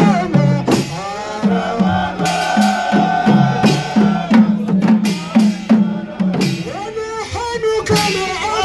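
Group of men chanting a Mawlid devotional song in unison, accompanied by frame drums beaten in a steady rhythm.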